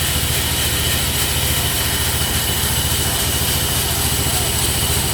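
Sawmill's engine running steadily at idle, with a fast, even low pulse.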